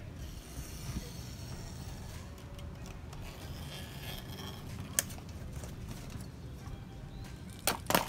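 Utility knife trimming excess screen mesh along the edge of a metal window-screen frame: faint scraping and slicing, with a sharp click about five seconds in and a few sharp knocks near the end.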